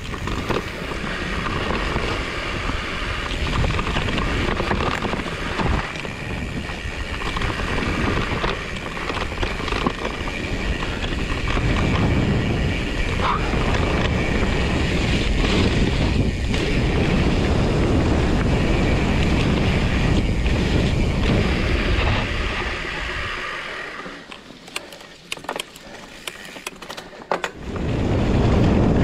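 Fat-bike ride over a wet, rooty trail: a steady rush of wind on the microphone mixed with tyre and drivetrain noise. About three-quarters of the way through the rush drops away for a few seconds, leaving scattered sharp clicks and knocks, then it comes back.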